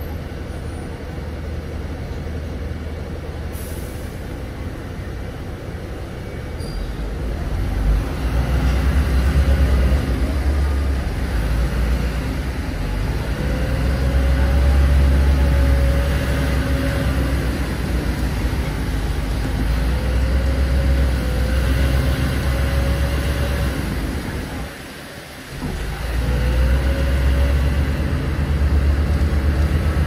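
Inside a city bus: the engine and drivetrain rumble deeply as the bus gets under way, swelling a few seconds in. A wavering whine rises and falls over the rumble. About three-quarters of the way through, the noise drops away for about a second, then picks back up.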